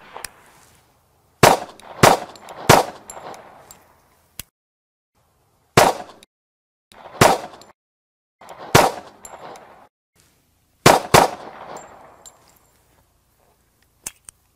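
Nighthawk Custom Bull Commander, a 1911 pistol in .45 ACP, fired eight times in three strings: three shots about half a second apart, three more about a second and a half apart, then a quick pair near the end. Each shot trails off in echo.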